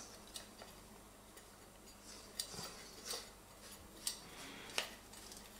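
Light metal clicks and taps from handling a Jetboil burner and screw-on gas canister as the burner is fitted onto the canister, about five scattered clicks.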